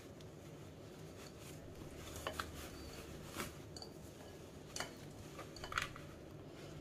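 Faint rustling of a cloth bundle of curd and a few light ticks as hands twist it shut and wind a rubber band around it over a steel strainer, with quiet room tone underneath.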